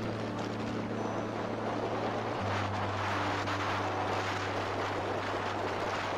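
Steady rushing wind and road noise of a motorcycle ride through a road tunnel. Under it, background music holds low notes that step to a new pitch about two and a half seconds in.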